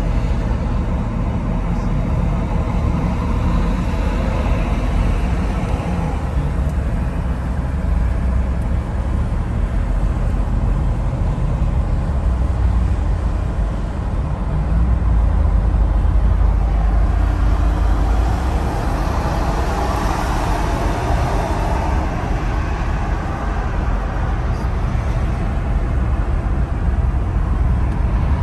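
Road noise inside a vehicle's cabin at highway speed: a steady low rumble of tyres and engine, a little louder for a few seconds past the middle.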